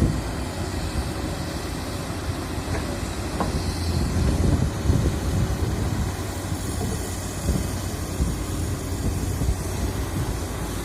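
Heavy diesel machinery running with a steady low rumble, with a few faint clicks.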